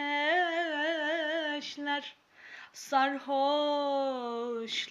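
A woman singing a Turkish song solo, with no instruments heard: two long drawn-out phrases with vibrato and a short breath between them about two seconds in.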